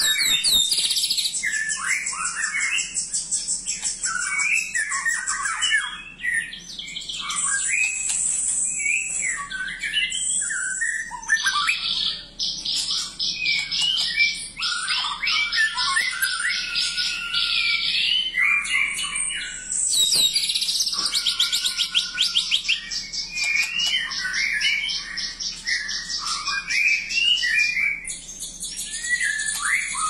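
A white-crowned shama (murai batu) singing a long, varied song that mixes clear whistled phrases with fast, buzzy rattling trills, almost without a break. It pauses briefly about 6 and 12 seconds in.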